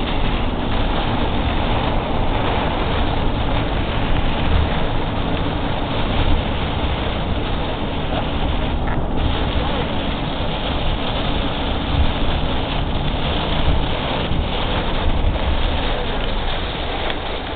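Steady noise of a car driving in a rainstorm: tyre, rain and wind noise with a low rumble throughout.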